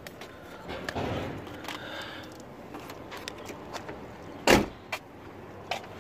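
Handling noise around an open car door: rustling, then one loud knock about four and a half seconds in, followed by a couple of small clicks.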